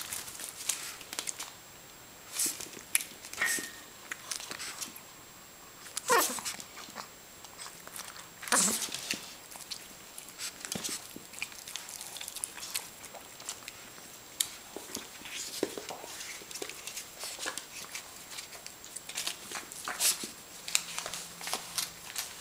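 Small dog tearing and chewing paper, a run of short crackles and clicks, with two short falling whimpers about 6 and 8.5 seconds in.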